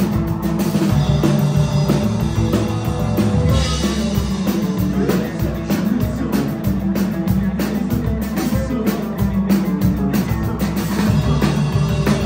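A live rock band playing loud through the PA: drum kit hit in a fast, steady beat under a driving electric bass line, with keyboard and percussion.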